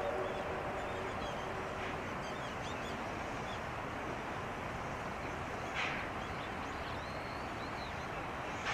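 A steam locomotive's whistle tails off in the first half second. It gives way to the steady rushing noise of the steam train running, with no clear beat, with high bird chirps and two sharp knocks, one about six seconds in and one at the very end.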